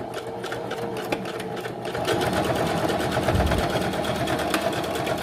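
Juki HZL-353Z domestic sewing machine stitching through four layers of rigid 12 oz denim, the needle running in a rapid, even rhythm that picks up speed and loudness about two seconds in. It feeds the thick stack without strain, its sound no different from sewing thinner fabric.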